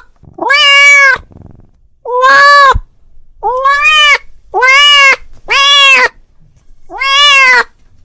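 Domestic cat meowing loudly and insistently, six drawn-out meows about a second apart, each rising and then falling in pitch: a cat calling to another cat.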